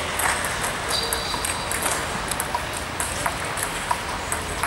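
Table tennis rally: the ball clicking sharply off the rackets and the table in a quick back-and-forth, with more ball clicks from other tables in the hall. A brief high squeak comes about a second in.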